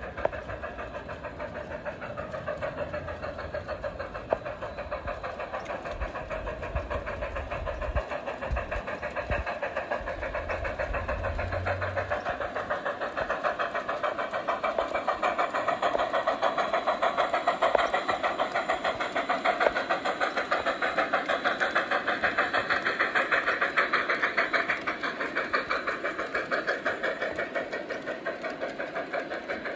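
G-scale model steam locomotive and freight cars running along garden railway track, a steady rapid beat of clatter that grows louder in the middle as the train passes close, then eases off. A low rumble sits under the first half.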